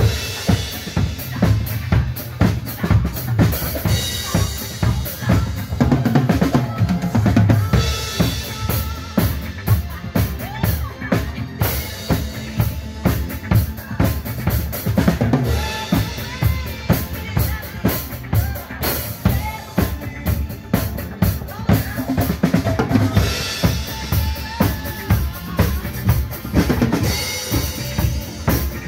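Acoustic drum kit played live: a steady beat of kick and snare hits, about two a second, with cymbal crashes every few seconds.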